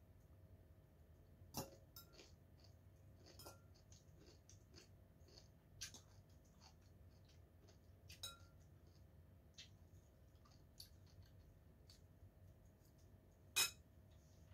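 A metal fork clinking and tapping against a bowl now and then while food is scooped, about eight short clinks, some with a brief ring, over a quiet room. The sharpest clink comes near the end.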